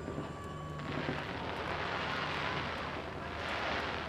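Aerial fireworks crackling in a dense rush of noise that sets in about a second in and swells near the end, over a low steady hum.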